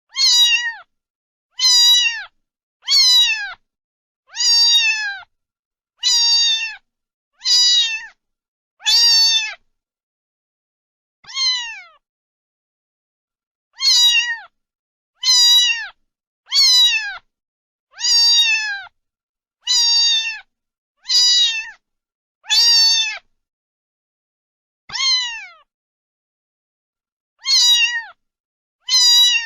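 A cat meowing over and over, about eighteen short meows, each falling in pitch at the end, separated by brief pauses and a few longer ones.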